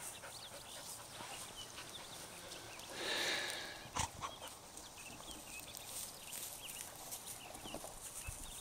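A single louder animal call, about half a second long, about three seconds in, over faint short high chirps. A sharp knock about a second later.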